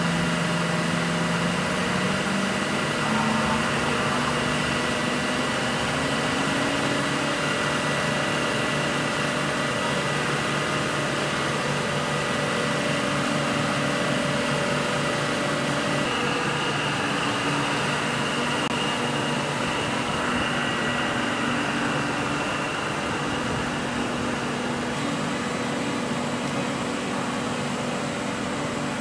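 Steady machinery noise of an aircraft carrier's hangar bay: ventilation hum mixed with the engine of an aircraft tow tractor, its tones stepping up in pitch a few times and changing about halfway through.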